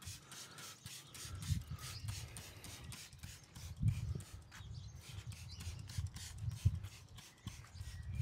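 Hand trigger spray bottle squirting pre-wash degreaser onto a van's paint and glass in quick repeated pumps, about three a second, with a low rumble underneath.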